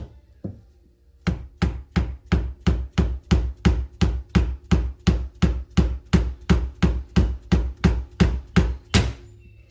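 Rapid, even striking, about three sharp blows a second for some eight seconds after a couple of single knocks, with a heavier last blow near the end, as a stuck aluminium part of the old shifter is knocked loose.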